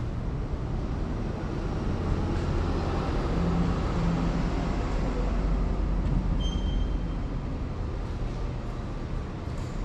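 Low rumble of a heavy passing vehicle, likely a train, that swells in the middle and then eases off, with a brief faint high squeal about two-thirds of the way through.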